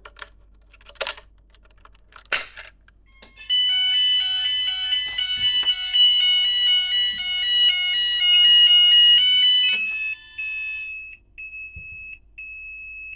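Fire alarm devices sounding during a system test. Two clicks come early, then a loud alarm tone steps quickly between pitches for about six seconds. After that a high beep repeats with short gaps.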